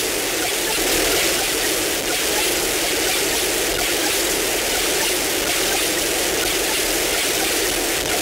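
Electronic noise music: a loud, steady, dense hiss with little bass, unchanging throughout.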